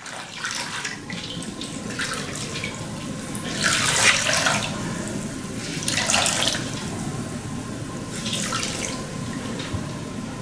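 A towel wrung out over a plastic basin: water streams and splashes back into the basin in several bursts, the loudest about four and six seconds in, with trickling and dripping between.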